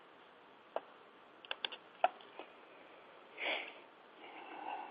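Quiet pause with a few faint clicks, then a short breath or sniff in about three and a half seconds in, close to the microphone.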